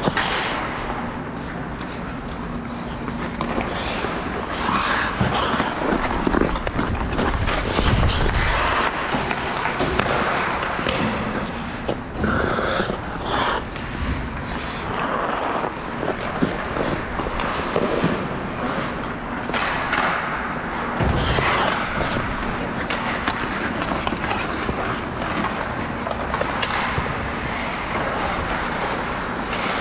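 Ice hockey play: skate blades scraping and carving on the ice, with sticks and puck knocking in quick, irregular clacks.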